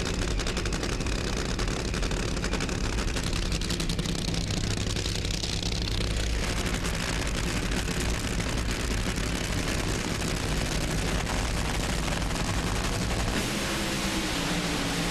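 Nitro-burning drag-racing engines running, a dense rapid crackle with a change in texture about six seconds in.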